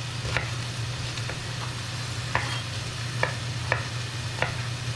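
A kitchen knife slicing an onion, its blade knocking on the cutting board about seven times at an uneven pace, over the steady sizzle of chicken breast searing in a hot pan.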